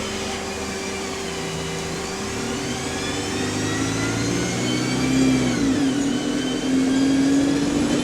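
Bus diesel engine and Voith automatic gearbox accelerating. The whine climbs in pitch over a few seconds, drops at a gear change about six seconds in, then climbs again. The gearbox sounds healthy.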